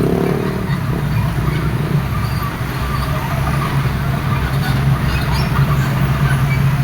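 Excavator's diesel engine running steadily, with a higher whine that fades out in the first half second.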